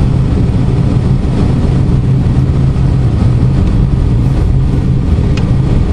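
Steady rush of airflow around a light aircraft's cockpit as it glides with the engine shut down and the propeller stopped, with a constant low hum underneath.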